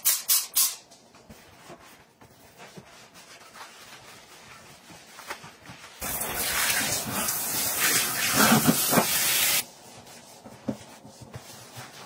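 A hand-held trigger spray bottle spritzing a bathroom sink a few times in quick succession. Then a cloth rubbing and wiping across the basin, loudest for a few seconds just past the middle.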